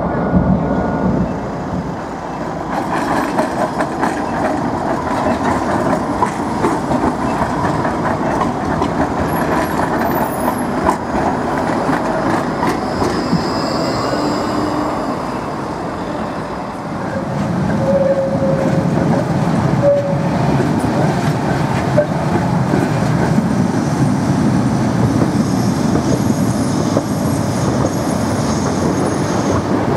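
Electric trams running on rails: a steady rumble of wheels on track, first heard riding aboard a tram, then from trams passing close by.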